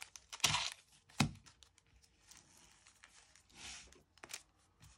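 Foil trading-card booster packs crinkling as they are handled and set down on a desk mat, loudest about half a second in, with a sharp knock just after a second and a few light taps near the end.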